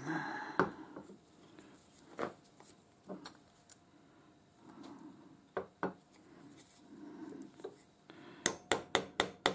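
Scattered clinks and knocks of a steel lathe live centre being handled and set in a bench vice, then, near the end, a quick run of light hammer taps on it, about five a second, to drive the spindle and bearings out of the body.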